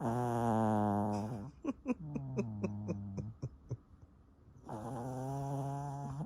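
A Pomeranian snoring: two long snores with a steady pitch, and between them a run of quick clicking rattles, about four a second.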